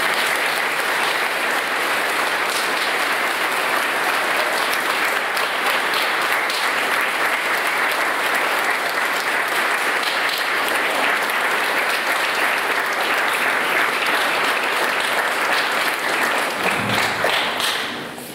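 Audience applauding steadily for about seventeen seconds, then dying away near the end.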